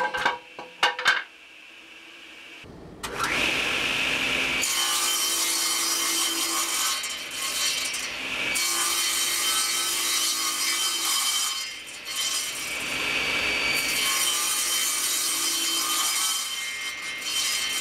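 An oak board clattering onto the floor as it leaves a table saw, then a belt-driven table saw running and cutting through oak stock. The cutting noise dips briefly twice between passes.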